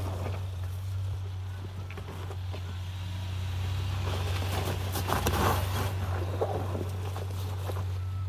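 2022 Ford Maverick FX4's turbocharged 2.0-litre four-cylinder running at a steady low drone while the truck drives over off-road terrain, with a few knocks and rattles about five seconds in.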